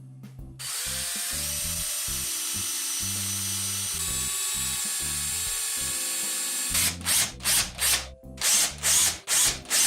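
A handheld power tool working wood runs steadily for about six seconds, then cuts in short repeated bursts, about three a second, with background music underneath.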